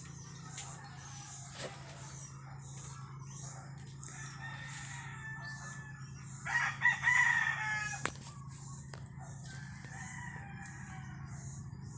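A rooster crows once, loudly, about six and a half seconds in, with fainter crowing before it, over a steady low hum.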